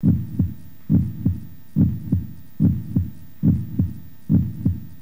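Heartbeat sound effect: pairs of low, dull thumps (lub-dub) repeating steadily at a resting pace of a little over one beat a second.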